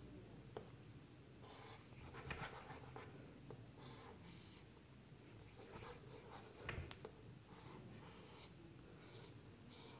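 Faint, intermittent strokes of a marker drawing lines on a whiteboard, with a couple of light taps of the pen.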